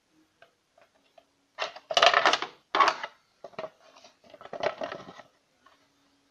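Plastic engine cover knocking and rattling as it is fitted back over the engine, in irregular clusters of sharp clatter, loudest about two to three seconds in.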